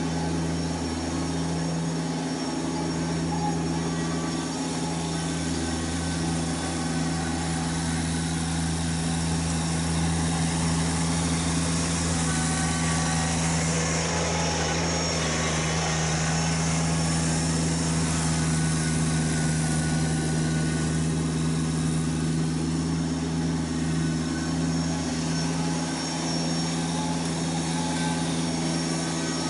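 Kubota BX1870 sub-compact tractor's three-cylinder diesel running steadily while plowing snow. It is loudest and brightest about halfway through, as the tractor passes close by.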